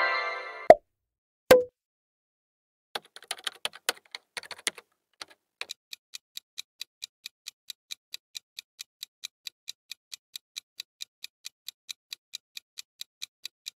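Clock-style countdown timer sound effect ticking evenly, about three to four ticks a second, while time runs down to answer a quiz question. It opens on the fading tail of a chime, then a loud sharp click, a short pop and a brief flurry of clicks.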